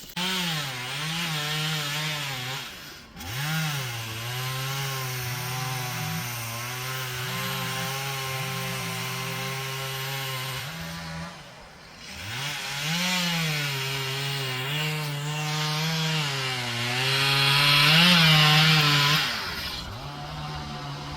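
Chainsaw running at high revs while cutting timber, its engine pitch dropping sharply and climbing back twice as the throttle eases and opens again. It is loudest and harshest shortly before the end, then falls back.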